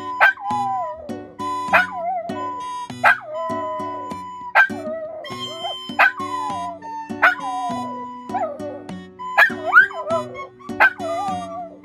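Shih Tzu barking about every second and a half, each bark sliding down in pitch into a short howl, in reaction to a recorder's held high note, over background music.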